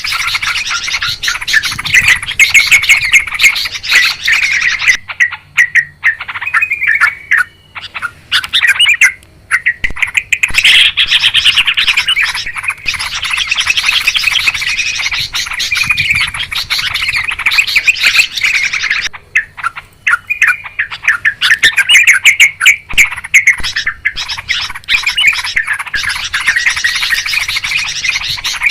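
Yellow-vented bulbuls (trucukan) in a noisy, busy chorus of rapid chattering, bubbly calls, broken by short lulls about five to ten seconds in and again near twenty seconds.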